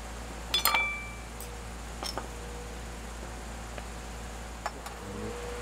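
A metal spoon clinking against a stainless steel bowl: a quick cluster of clicks with a short metallic ring just under a second in, then a few lighter taps later.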